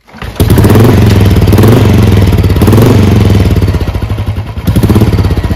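A Royal Enfield Bullet 350 UCE's single-cylinder engine, fitted with a pea shooter exhaust, starts about half a second in and runs loudly. Its revs rise and dip unevenly a few times: it is still cold and cannot hold a steady idle.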